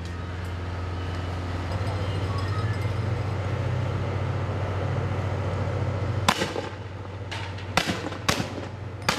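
A vehicle engine running with a steady low hum, then four sharp bangs of fireworks going off in the last three seconds.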